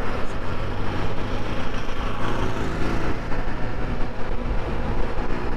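Motorcycle engine running steadily while riding, a low even hum mixed with wind and road noise.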